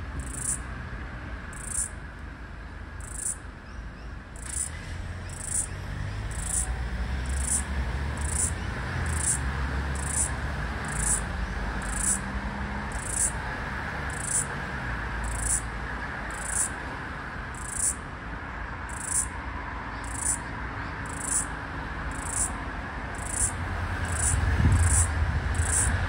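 Floury baker cicada (Aleeta curvicosta) calling: short high-pitched buzzing pulses about once a second, coming faster, at about two a second, near the end. Low traffic rumble runs beneath.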